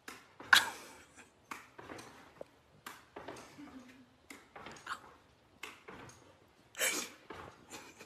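A dog repeatedly leaping and landing on a hard floor: a string of short, irregular thumps and scuffs, about one or two a second. The loudest come about half a second in and near the end.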